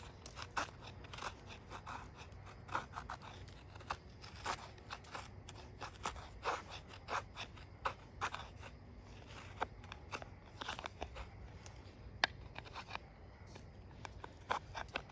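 A Helle Eggen knife with a Sandvik 12C27 stainless blade shaving curls down a split stick of wood to make a feather stick: a string of short, crisp scraping cuts, about one or two a second. A sharp click comes about twelve seconds in.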